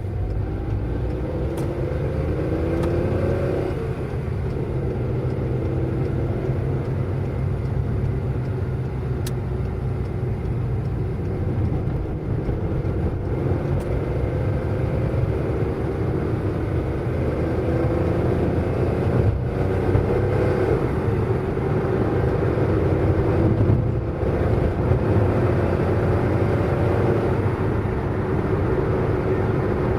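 Car driving at speed: a steady low road and engine rumble, with the engine note climbing slowly and dropping back several times.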